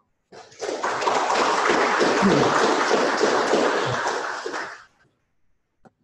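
Audience applause: a dense patter of many hands clapping that starts just after the beginning, holds steady, and dies away about five seconds in.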